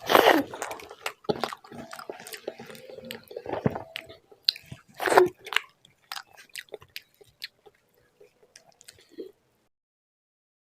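Close-miked wet chewing and smacking of a mouthful of rice and mashed okra bharta, with two louder squelching bites at the start and about five seconds in.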